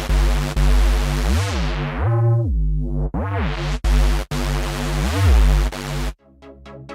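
A Sylenth1 software synthesizer preset plays a loud, buzzy sustained bass-heavy patch. Its pitch swoops up and back down several times, and its filter closes down to a dull tone and reopens about two to three seconds in. It cuts off suddenly near the end, and a quieter patch of short, rapidly repeated plucked notes starts.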